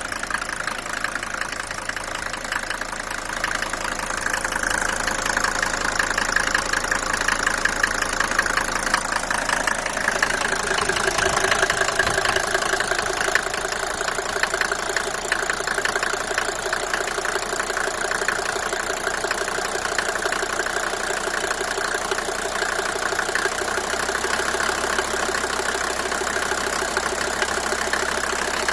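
Mercedes-Benz W124 250T's five-cylinder diesel engine idling cold, with a steady, rapid ticking-knocking clatter running through it. This is the noise the owner can't place after replacing the cylinder head gasket and valve stem seals.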